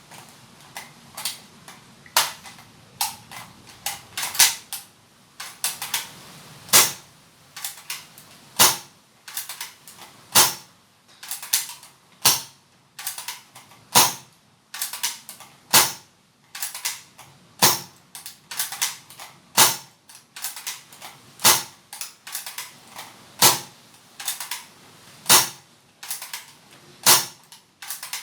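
A&K spring-powered airsoft Dragunov SVD being cocked and fired over and over. Each shot is a sharp snap, about one every two seconds, with quieter mechanical clicks of the cocking handle between the shots.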